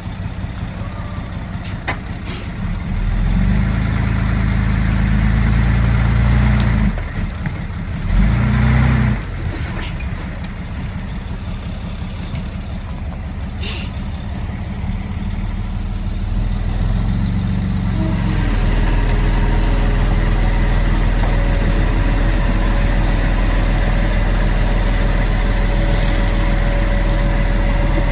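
Heavy diesel engine of earthmoving machinery working. It revs up about three seconds in and again briefly around eight seconds, then runs louder and steadily through the second half. A few sharp knocks are scattered through it.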